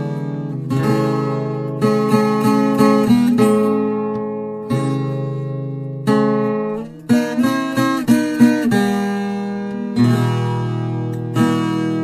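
Background music on acoustic guitar: plucked chords and notes that start sharply and ring out, with a quicker run of picked notes about two-thirds of the way through.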